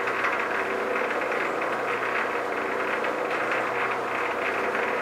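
Clausing 6913 metal lathe running under power, its motor and gear train giving a steady hum, during a single-point threading pass with a boring bar inside a bronze nut.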